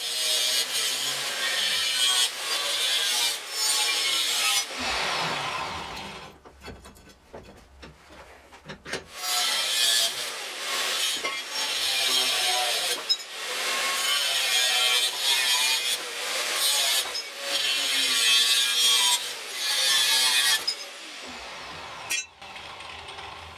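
Angle grinder with a cut-off disc cutting into steel angle profile clamped in a bench vise, the cut going in loud spells with a quieter lull from about five to nine seconds in. The cutting stops about three seconds before the end.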